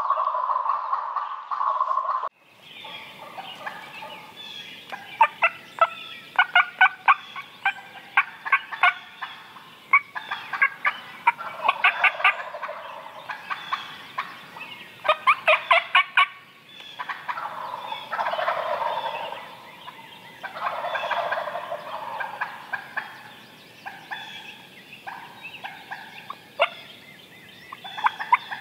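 Wild turkey gobblers gobbling, one rattling gobble after another every few seconds. An unidentified steady sound at the start cuts off suddenly about two seconds in.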